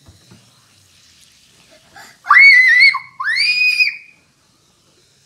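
A child's two high-pitched excited screams, starting about two seconds in, each under a second long, rising at the start and then held.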